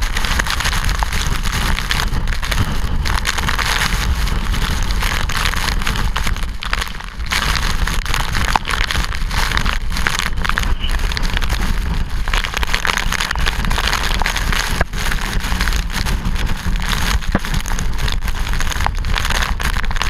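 Typhoon eyewall winds and driving rain beating on a small action camera: a loud, steady rush of wind rumble and rain hiss, full of small clicks from drops hitting the camera. It eases briefly about a third of the way in.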